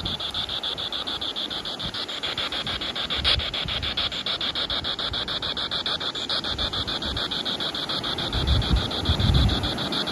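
Spirit box radio sweeping up through the FM band in 150-millisecond steps, giving an even, rapid chopping hiss of static. No voice comes through.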